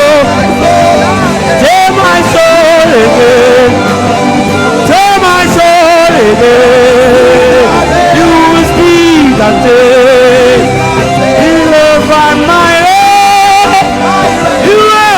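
Live worship music: a voice singing long, wavering held notes over steady sustained instrumental backing.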